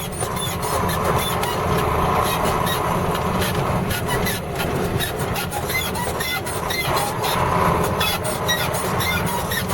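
KAMAZ fuel tanker truck driving, heard from inside the cab: the diesel engine runs with a steady drone, with many small rattles and clicks from the cab.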